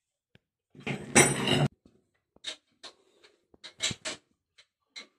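Plumber's tools and fittings at a water heater's pipe connections: a loud harsh noise lasting just under a second about a second in, then a string of light clinks and knocks, about a dozen.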